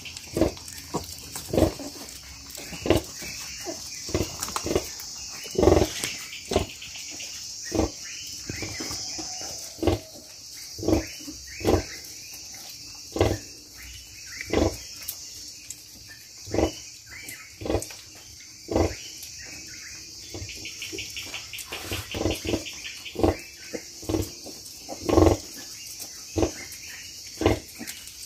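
Sow grunting in short, low grunts roughly once a second while her newborn piglets suckle: the rhythmic nursing grunts of a sow letting down milk. Crickets chirp steadily behind.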